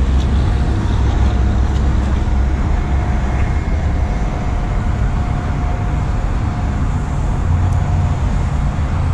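A car engine running, a steady low drone with no revving.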